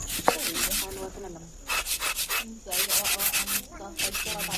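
Hand craftwork being rubbed or scraped: quick, even strokes in four short bursts, with brief pauses between them.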